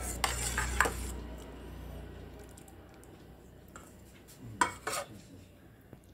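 Metal ladle clinking and scraping against a steel serving bowl of dal for about the first second, then two sharp metallic clinks a little before five seconds in.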